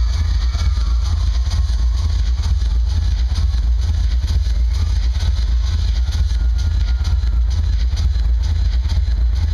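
Electronic dance music from a DJ set over an arena PA, heard here as a loud, steady deep bass rumble with little else above it.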